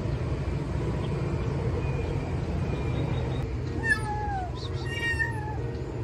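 Kitten meowing twice, about four seconds in: two drawn-out calls that fall in pitch, over a steady low rumble.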